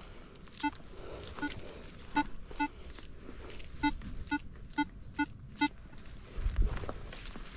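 Metal detector sounding about ten short beeps of the same low, buzzy pitch, in pairs and short runs: the detector's audio signal for metal under the search coil. A low thud about six and a half seconds in.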